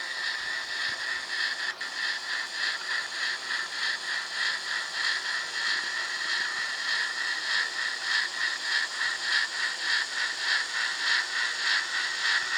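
Sound decoder in an N scale EM-1 2-8-8-4 Yellowstone steam locomotive playing even, quick steam chuffs over a steady hiss through its tiny speaker as the model runs along the track.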